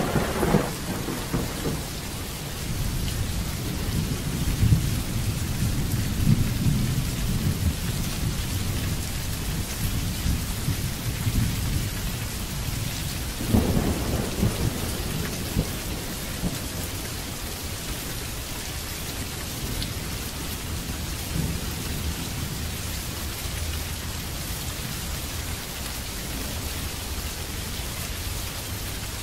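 Steady rain falling, with thunder rumbling low under it. The rumble swells through the first half, and a sharp thunderclap breaks about halfway through, then rolls away.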